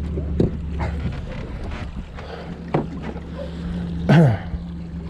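Mercury outboard motor running steadily at trolling speed, a low even hum. Scattered clicks and knocks of gear being handled in the aluminium boat, and a short falling squeak about four seconds in.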